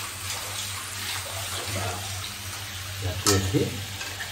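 Vegetables frying and sizzling in a kadai on a gas stove while a metal spatula stirs them, with one sharp knock of the spatula on the pan about three seconds in.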